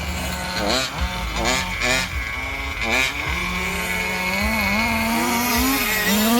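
Small engines of radio-controlled model cars revving up and down in quick sweeps. After about three seconds one car holds a steady, slowly rising note, as at full throttle.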